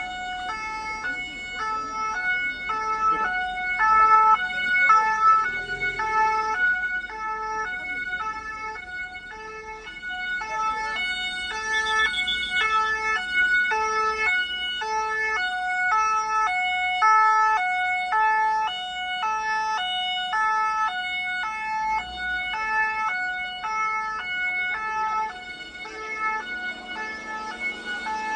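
Two-tone emergency-vehicle siren switching between a high and a low note about every half second, without a break.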